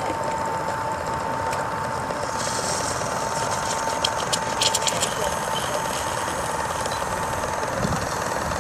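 Live-steam model launch's steam plant running: a steady hiss with fast mechanical ticking and a steady thin whine, and a few sharp clicks about three to five seconds in.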